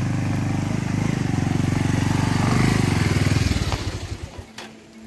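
Motorcycle engine running with a steady pulsing beat as the bike comes up close and passes by. It grows louder, then fades quickly near the end.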